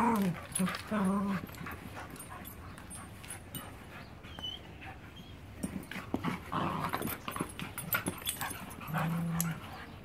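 Pit bull-type puppies play-wrestling, giving short low play growls in the first second or so, a brief high yip about four seconds in, and another low growl near the end, with scuffling in between.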